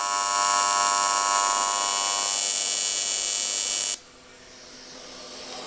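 AC TIG welding arc on aluminum from a Longevity Tigweld 200EX, set to a 90 Hz AC frequency, running with a steady electric buzz. About four seconds in the arc is broken and the buzz cuts off suddenly, leaving a soft hiss that slowly grows.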